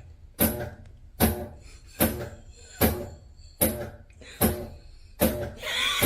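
Steady drum beat, one hit a little under every second. Near the end a high, wavering call joins it.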